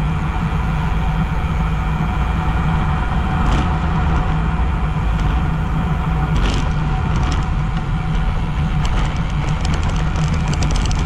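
Wind rushing over an action camera's microphone on a bicycle coasting downhill at about 30 km/h, with tyre noise on asphalt. Light clicks come now and then, and more often near the end.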